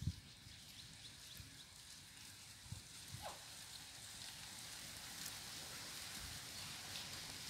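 Faint outdoor ambience: a steady high hiss with scattered light ticks, and a brief low thump right at the start.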